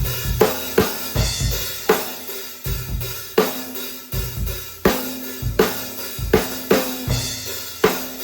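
A drum kit played in a steady groove, showcasing a 14 x 8 inch, 3/4 inch thick hard maple stave shell snare drum at a low tuning, with bass drum thumps and hi-hat and cymbal strokes between the snare hits.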